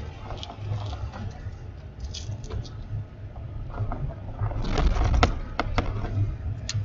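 Strong storm wind buffeting a vehicle near a tornado, a steady low rumble that surges in gusts. A cluster of sharp taps and clicks comes in about four and a half seconds in and runs to near the end.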